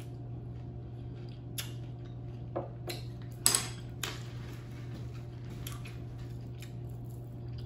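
Spoon and small glass bowl of ceviche set down on a wooden cutting board, with a few light clicks and a louder brief clatter about three and a half seconds in, amid faint chewing sounds. A steady low hum runs underneath.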